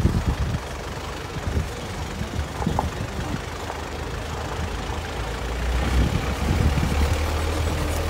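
4x4 safari jeep driving over a rough dirt track: a steady low engine rumble with irregular knocks from the bumps, getting louder about six seconds in.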